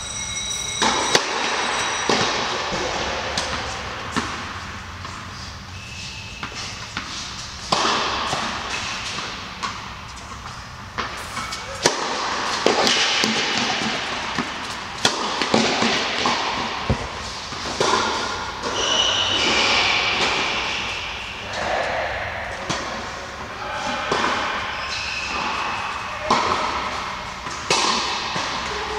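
Tennis rally on an indoor court: rackets striking the ball and the ball bouncing, a sharp knock every second or two, with shoes squeaking and the echo of a large hall.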